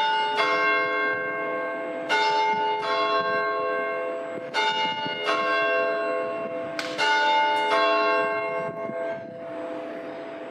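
Clock-tower bells chiming: four pairs of strokes on two different notes, a pair about every two and a half seconds. Each stroke rings on, and the ringing dies away near the end.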